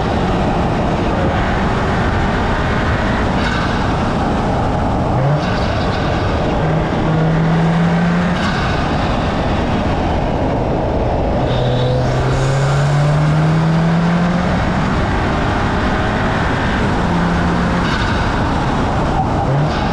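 Turbocharged 2.0-litre EA888 Gen 4 four-cylinder fitted with a Racingline cold air intake and turbo inlet, accelerating in several pulls with the engine note climbing, the longest pull about twelve seconds in, over a steady rushing noise.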